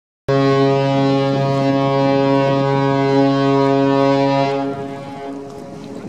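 Ship's horn of the German Navy sail training ship Gorch Fock sounding one long, steady, deep blast that starts abruptly, stops about four and a half seconds in and dies away over the next second.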